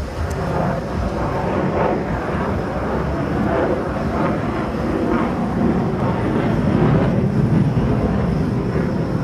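Airplane engine noise from an aircraft flying overhead, a steady drone.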